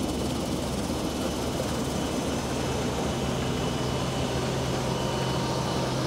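Combine harvester running steadily as it harvests: a constant low engine drone with a steady hum and no change in speed.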